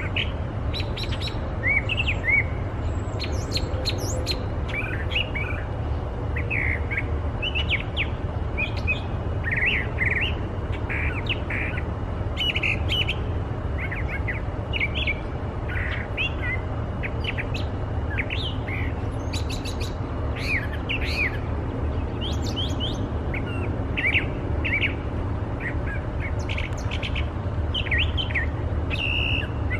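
Brown thrasher singing a long, continuous string of short, varied phrases, each a quick cluster of sweeping notes. The song includes phrases taken for mimicry: one possibly imitating an American robin (three, then four quick notes), and near the end one possibly imitating a red-winged blackbird (two quick trills). A steady low rumble runs underneath.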